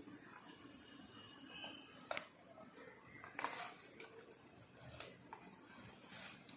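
Cattle grazing: faint rustling and tearing of grass in short, irregular bursts, five or so in a few seconds.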